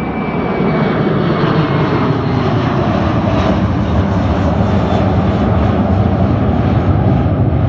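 Jet airliner's engines running loud and steady as the plane passes, the noise swelling slightly about a second in.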